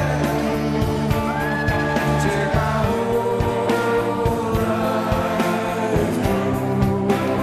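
A song: a singer over held instrumental notes and a steady beat.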